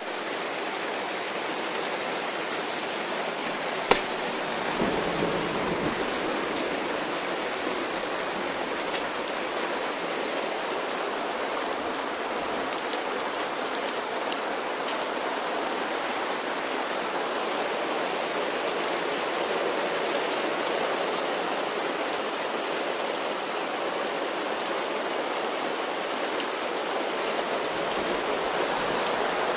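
Rain falling steadily in a storm, an even hiss, with one sharp click about four seconds in.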